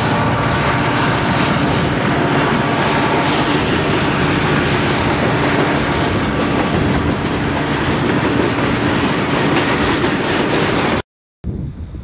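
Burlington Northern freight train passing close by: loud, steady rumble and clatter of freight-car wheels on the rails. It cuts off abruptly about eleven seconds in.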